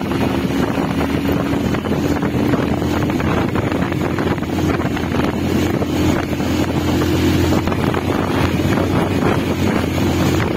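Hero motorcycle engine running steadily while the bike is ridden at road speed.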